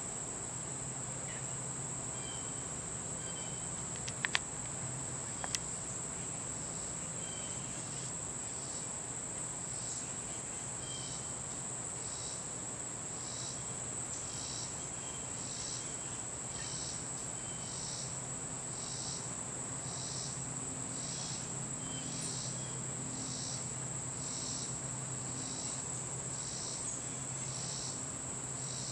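Insects trilling steadily and high-pitched, with a second insect chirp repeating about once a second from about eight seconds in. A few sharp clicks stand out around four to five seconds in.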